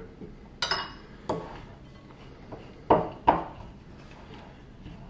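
Wooden spoon knocking against a glass mixing bowl while stirring thick cookie dough: a handful of separate knocks, the two loudest close together about three seconds in.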